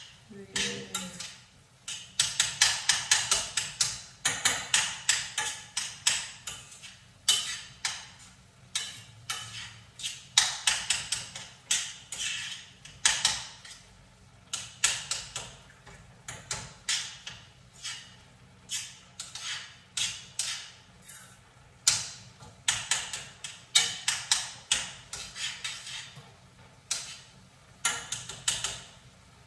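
A cooking utensil striking and scraping a pan as it chops up ground meat cooking there: quick runs of taps, several a second, with short pauses between runs.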